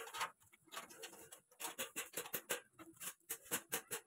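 Hand rivet gun clicking while fastening a sheet-metal rain-gutter funnel: a rapid, irregular string of sharp clicks and metallic taps.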